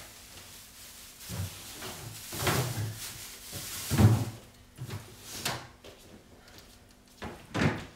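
Refrigerator being stocked with bagged vegetables: a handful of separate knocks and thumps from the fridge shelves and crisper drawer, the loudest about four seconds in, with plastic bags rustling.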